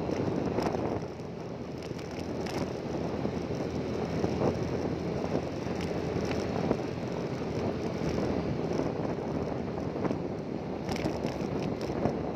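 Wind buffeting the microphone over the steady rumble of a moving vehicle, with a few faint clicks scattered through.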